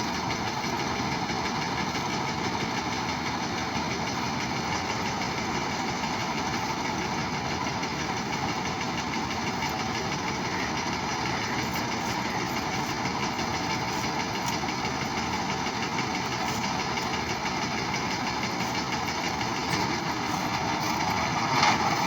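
New Holland tractor's diesel engine running at a steady speed, with a short louder surge near the end.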